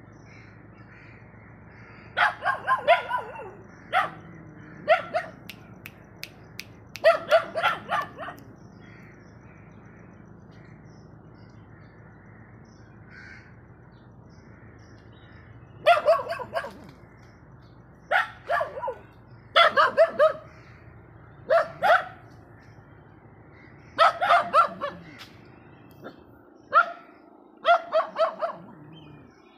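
Dog barking in short runs of several sharp barks, with a pause of several seconds midway.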